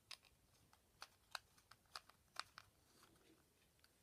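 Faint, scattered clicks of small plastic parts being handled, as the battery compartment of a Trackmaster Revolution toy engine is opened for batteries.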